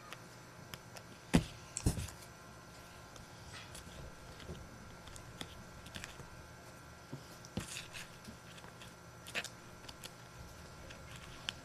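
Quiet handling of a cardboard-and-tape paper squishy while it is stuffed with cotton: scattered rustles and small crinkles, with a sharp click about a second in and a few more later.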